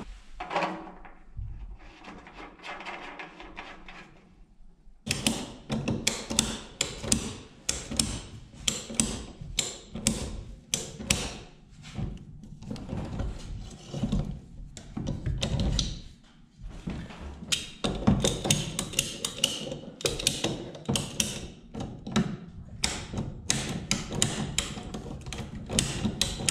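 Ratcheting PVC pipe cutter clicking over and over as its handles are squeezed, stepping the blade through gray PVC electrical conduit. The clicking starts about five seconds in, after a few quieter seconds.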